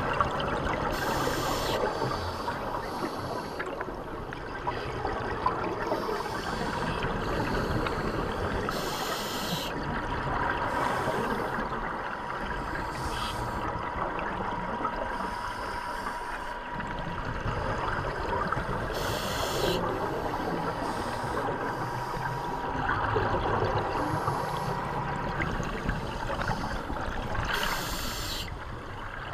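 Scuba breathing through a regulator heard underwater: a short hiss of breath roughly every nine seconds, with a steady rush of bubbling and water noise in between.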